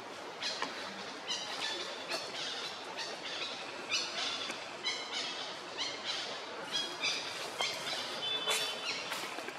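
A small animal's short, high-pitched squeaky calls, repeated about once or twice a second throughout.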